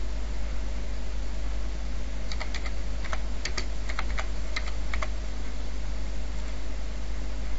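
Typing on a computer keyboard: about a dozen quick keystrokes between about two and five seconds in, over a steady background hiss.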